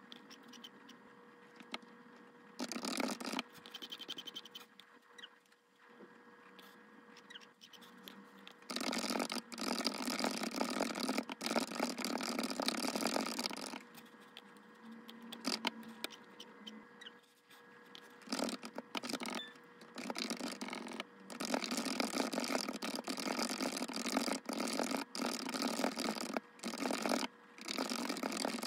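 Typing on a mechanical keyboard: runs of rapid keystroke clacks lasting a few seconds each, broken by short pauses.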